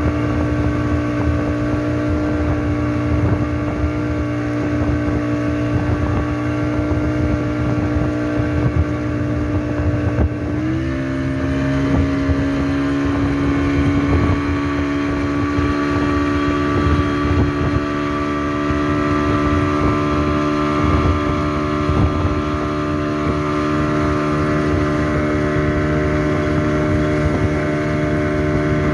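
Tow boat's engine running steadily at speed while pulling a banana boat, over the rush of water and wind. About ten seconds in the engine note dips slightly and holds at a lower pitch.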